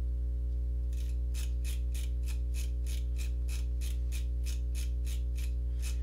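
Computer mouse scroll wheel clicking notch by notch in a steady run of about three to four clicks a second, starting about a second in, over a steady low electrical hum.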